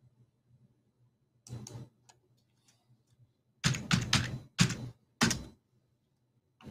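Typing on a computer keyboard: a few key clicks about a second and a half in, then a quicker, louder run of keystrokes from about three and a half to five and a half seconds in.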